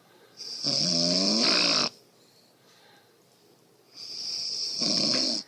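A woman snoring loudly: two long snores about a second and a half each, the second starting about four seconds in, each a rattling pitched rasp with a strong hiss.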